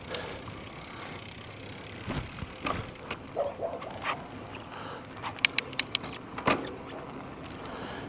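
E-bike being ridden off a driveway onto the road: steady rolling and wind noise with scattered knocks and rattles from the bike. About halfway through comes a quick run of sharp ticks, and a louder knock follows soon after.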